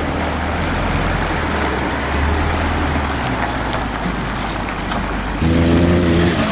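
Ford F-650 dump truck's engine running, a steady low rumble with outdoor noise. About five seconds in, it gives way abruptly to a louder engine sound with music.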